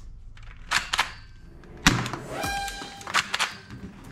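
Hard plastic toy guns knocking and clattering against each other as they are handled in a cardboard box: a handful of sharp clicks and knocks, the loudest about two seconds in.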